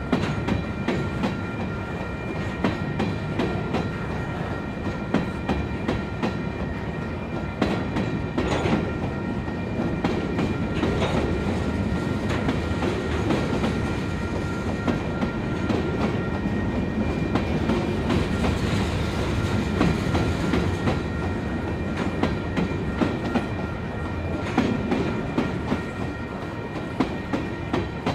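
Freight train cars rolling past, wheels clicking steadily over the rail joints over a continuous rumble.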